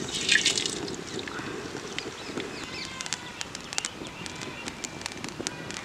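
Cumin seeds frying in hot oil in an iron kadai: a steady sizzle with many small sharp crackles and pops, more frequent in the second half.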